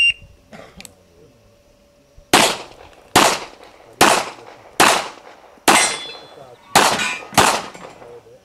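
A shot timer gives one short, high beep, and a couple of seconds later a handgun fires seven quick shots, about one every 0.8 s, in a timed practical-shooting course of fire. After a few of the shots a steel target rings as it is hit.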